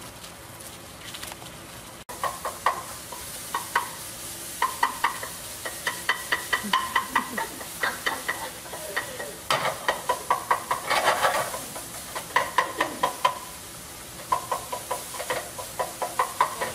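Loose chicken sausage meat sizzling in a skillet while a spatula scrapes and stirs it in quick runs of strokes, breaking it up as it browns. The stirring starts about two seconds in.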